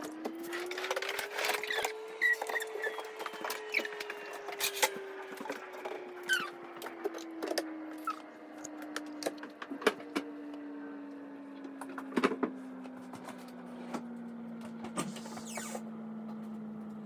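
Scattered knocks and clatter of things being moved about in a kitchen, over a steady mechanical hum. The hum rises in pitch over the first two seconds, then slowly sinks.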